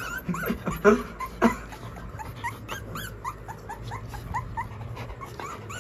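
Young Rottweiler puppies whimpering in a string of short, high squeaks that rise in pitch, about three a second. Two sharp knocks come about a second in.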